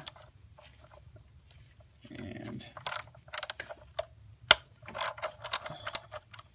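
Ratchet wrench clicking in short, irregular runs as it turns the hold-down bolt of an ignition coil, starting about three seconds in.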